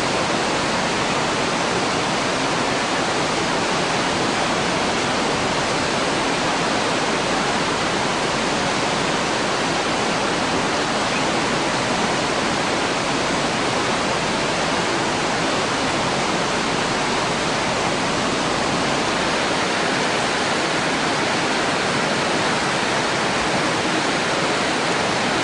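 A swollen, silt-laden river in flood rushing past: a steady, unbroken wash of water noise with no let-up.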